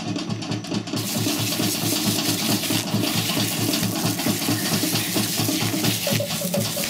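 Garden hose spray nozzle jetting water onto a harvested pineapple: a steady hiss of spray that starts about a second in. A low rhythmic pulsing runs underneath.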